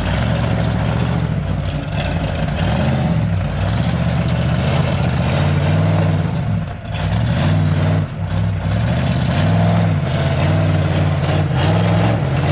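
Rock crawler buggy's engine revving up and down in repeated surges under load as it climbs over boulders, dipping briefly twice about seven and eight seconds in.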